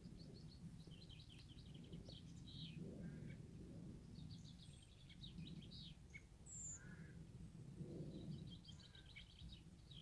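Faint songbird song in three phrases, each a run of quick high notes lasting about two seconds, over a low steady background rumble.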